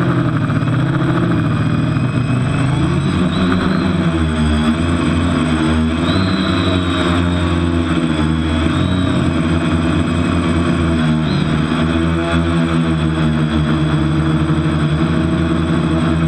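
TBS Discovery quadcopter's brushless motors and propellers whining, heard close from its onboard camera, the pitch rising and falling with throttle. It is flying on a propeller the owner calls dodgy.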